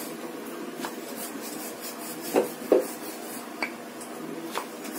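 Rolling pin rolling out a stuffed aloo paratha on a stone chakla, with a few light knocks of the pin against the board, two close together about two and a half seconds in, over a steady background hum.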